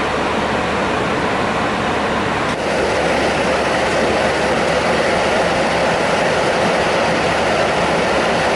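Steady rushing airflow and engine noise inside the cockpit of a Boeing 737-400 in a climb. It shifts slightly, a little brighter, about two and a half seconds in.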